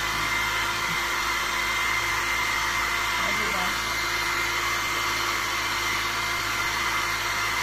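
Handheld electric hair dryer running steadily, blow-drying a wet dog's coat: an even rush of air with a steady high whine in it.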